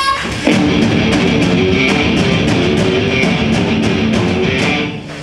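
Progressive metal band playing live in a club: distorted electric guitars, bass and a drum kit with steady cymbal hits. The full band comes in about half a second in.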